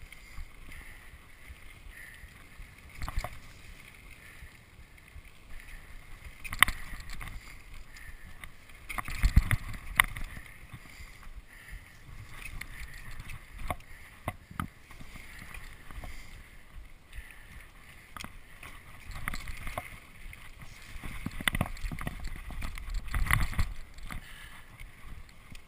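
Mountain bike rolling fast down dirt and rocky singletrack: steady tyre and rattle noise, with sharp knocks and clatters as the bike hits rocks and bumps, loudest about a third of the way in and again near the end.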